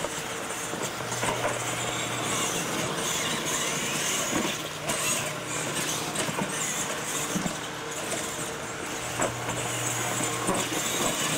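Two radio-controlled monster trucks racing on a dirt track: their motors whine, rising and falling in pitch as the throttle changes, over tyre noise on dirt, with a few short knocks as they land off ramps.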